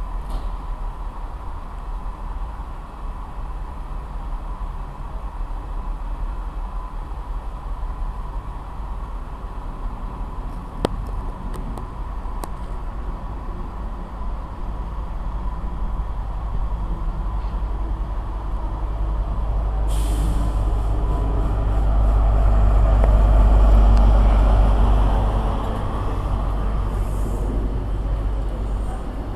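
Train at a station platform: a steady low rumble, with a short sharp hiss of air about two-thirds of the way through, after which the rumble swells to its loudest and then eases.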